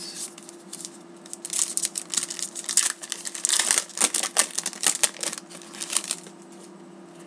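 A trading card pack's shiny wrapper being torn open and crinkled by hand: a run of crackles and rustles starting about a second and a half in and stopping about six seconds in.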